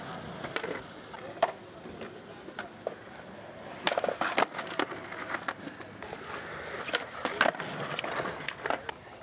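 Skateboards rolling on concrete, with sharp clacks of boards popping and landing. A quick cluster of clacks comes about four seconds in as a skater pops a trick off a ledge, and more come around seven seconds in.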